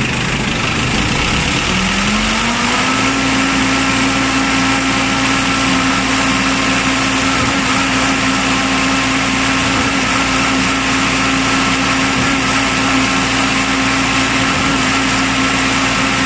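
Concrete pump machine running loud and steady; about two seconds in its motor speeds up, the hum rising in pitch, then holding at the higher speed.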